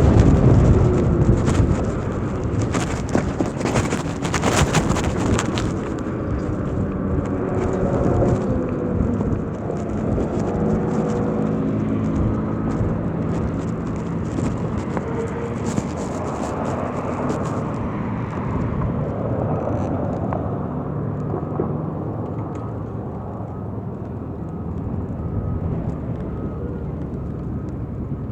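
Wind rushing over the microphone while riding an electric moto, with crackling in the first few seconds. Partway through, a motor's whine rises and falls in pitch.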